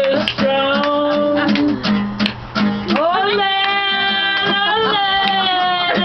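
Music: a woman's voice singing, holding long notes, over strummed acoustic guitar. A long held note begins about halfway through.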